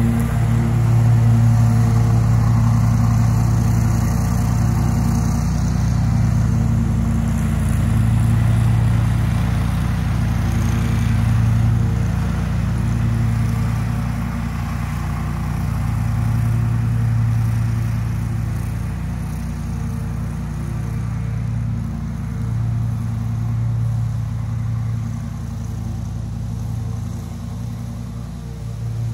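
Bad Boy Maverick HD zero-turn mower's 779cc Honda V-twin engine running under load while cutting tall wet grass, swelling and dipping every few seconds and growing fainter as the mower moves away.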